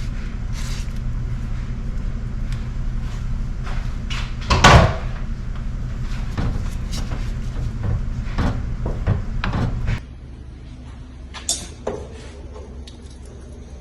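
Kitchen clatter while cooking: scattered knocks and clicks of cookware and cupboards, the loudest a sharp knock about five seconds in, over a steady low hum that cuts off suddenly about ten seconds in.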